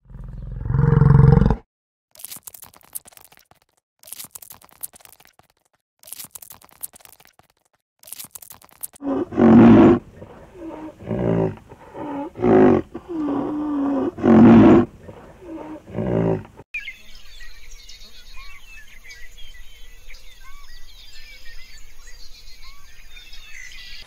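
Animal calls in turn. A bison gives a low bellow of about a second and a half at the start, followed by a few faint, short noisy bursts. Then white rhinoceroses give a series of loud calls that rise and fall in pitch, about one a second. In the last seconds comes a steady stream of high chirps from white stork nestlings.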